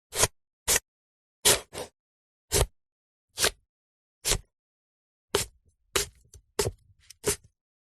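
A series of about eleven short, sharp sounds of fruit and vegetable preparation, one after another with silence between them, roughly one every two-thirds of a second.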